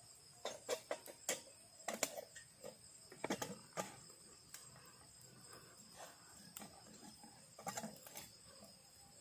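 Night insect chorus of crickets, a steady high-pitched drone, with scattered sharp clicks and knocks close by, clustered in the first two seconds, around three and a half seconds in, and near the end.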